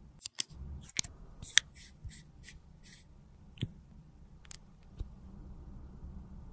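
Sharp plastic clicks and short scraping strokes as a plastic lipstick tube and mold are pushed and fitted together by hand, with a quick run of about four strokes in the middle, over a faint low hum.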